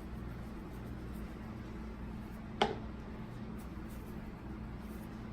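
Steady low room hum, with a single sharp click about two and a half seconds in.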